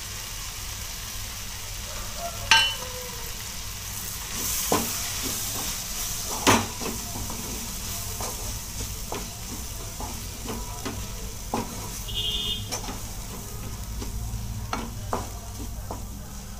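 Onion-tomato masala with spice powders sizzling in oil in a nonstick kadai, stirred with a wooden spatula that scrapes and knocks against the pan. A couple of the knocks are louder than the rest.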